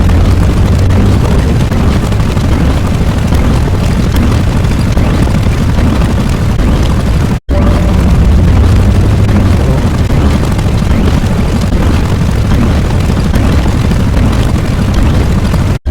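Loud, steady, bass-heavy rumbling noise sound effect, cut by a brief silent gap about seven and a half seconds in before resuming.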